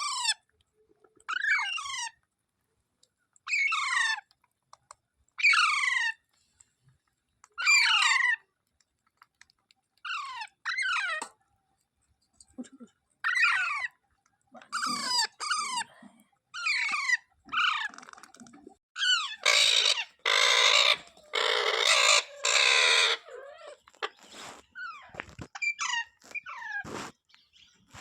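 Parrot calling over and over, a short downward-sliding screech every second or two. About twenty seconds in, a few seconds of harsher, nearly continuous screeching.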